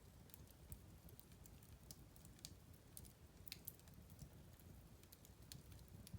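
Faint wood fire crackling in a fireplace: scattered sharp pops and snaps at an irregular pace over a soft low rumble.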